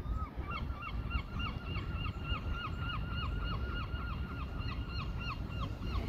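A rapid, even run of short, nasal, downward-sliding calls, about five a second, lasting some five seconds. The calls come from an animal in the park.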